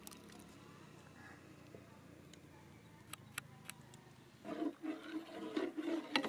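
Near quiet with a few faint clicks, then about four and a half seconds in, a louder irregular swishing of milk as it is stirred with a long metal paddle in a large aluminium pot.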